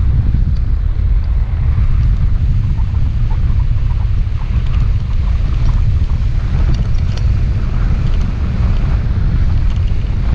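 Wind rushing over the microphone of a hang glider in flight: a loud, steady low rumble.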